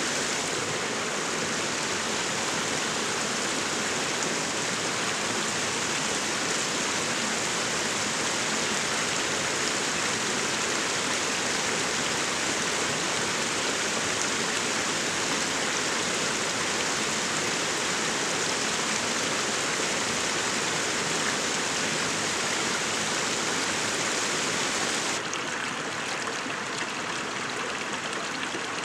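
Small rocky forest creek rushing and splashing steadily over stones in little cascades. About 25 seconds in the rush drops suddenly to a quieter, duller flow.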